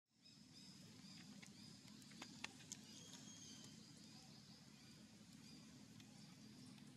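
Faint outdoor ambience: a low steady hum under thin, high bird chirps, with a few soft clicks about two to three seconds in.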